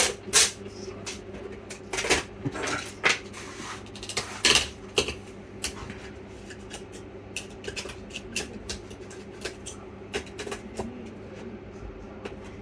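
Irregular small clicks and scrapes of hands and a tool working over a laptop motherboard as its stickers are peeled off, over a steady low hum.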